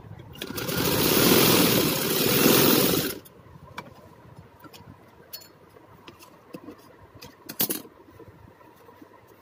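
Vistar domestic sewing machine running at speed for about three seconds, a loud steady rattle that stops abruptly. After it, scattered light clicks, with one sharper click about two-thirds of the way through.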